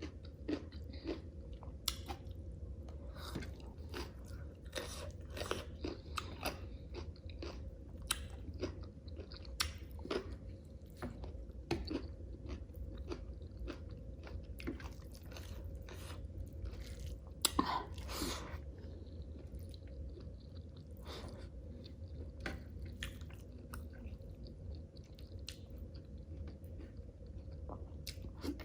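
Close-miked eating sounds: chewing, with frequent short crisp crunches and wet mouth clicks at an irregular pace, a louder bout of crunching about two-thirds of the way through.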